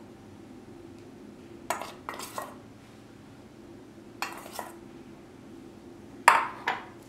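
A metal spoon clinking against steel and glass mixing bowls as flour is scooped and tapped out, in four short bursts of clinks, the loudest about six seconds in.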